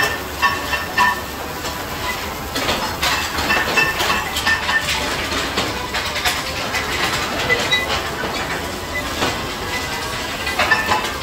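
Factory work noise: a continuous irregular clatter of knocks and clanks, some leaving a brief ringing tone.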